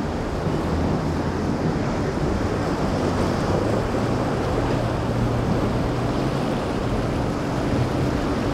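A boat engine drones steadily over the rush of waves in rough water, with wind buffeting the microphone.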